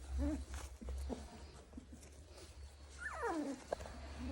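Cocker spaniel puppy whining: one long falling whine about three seconds in, after a short faint whimper near the start.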